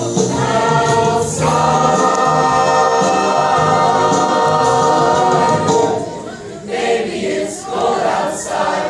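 Mixed high school choir of boys and girls singing the end of a song, holding a long final chord that is released about six seconds in.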